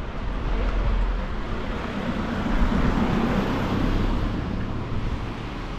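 A motor vehicle passing on the street, swelling loudest in the middle and fading again, over a low rumble of wind buffeting the microphone.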